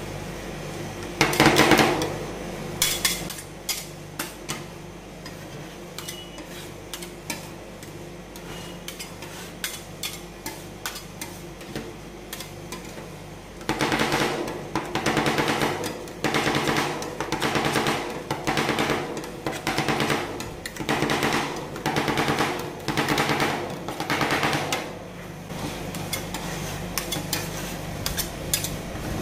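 Two metal spatulas chopping and scraping rolled-ice-cream base on a stainless steel cold plate. At first there is one loud clatter and scattered taps and scrapes; about halfway in it turns to rapid clattering bursts of chopping, about one a second. A steady low hum runs underneath.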